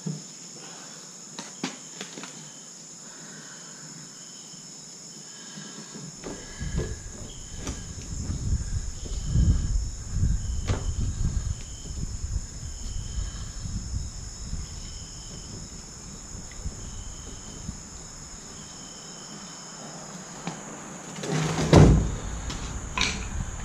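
Clicks and knocks of a car's fuel tank and its fuel pump module lines being handled on concrete, with a loud thump and scrape near the end as the tank is shifted. Steady high insect chirping throughout.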